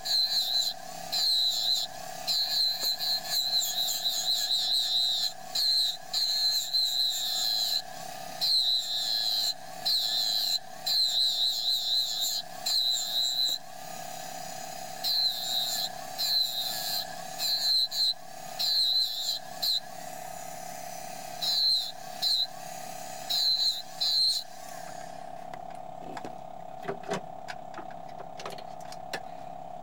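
Pneumatic engraving handpiece buzzing in short bursts, one burst per cut, as fine fur lines are engraved into a nickel, over a steady machine hum. The bursts stop about 25 seconds in, leaving the hum and a few faint ticks of the graver on the coin.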